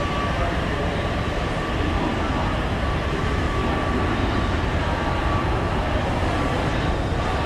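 Steady running drone of a long escalator and the hum of a large terminal hall, with a thin high whine that comes and goes.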